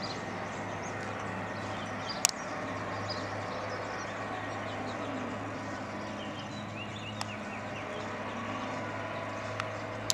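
Outdoor background of a steady low hum with faint bird chirps, broken by a few sharp clicks, the loudest about two seconds in.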